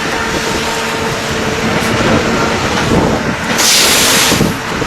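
Concrete block (batako) making machine running with a loud, steady mechanical din and a faint steady hum, broken about three and a half seconds in by a burst of hiss lasting about a second.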